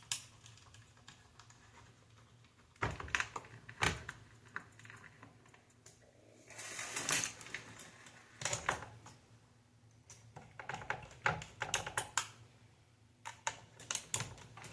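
Scattered clicks and taps of plastic console parts and small screws being handled and fitted together, with quick runs of clicks later on and a short scraping rustle about seven seconds in.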